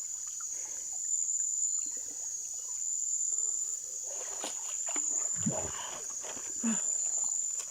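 Steady, high-pitched chorus of night insects, with scattered short knocks and a few brief low sounds in the second half.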